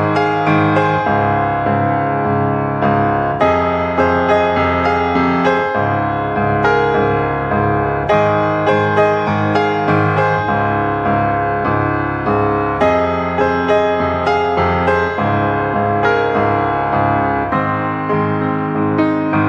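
Background music led by piano, a steady run of struck notes and chords.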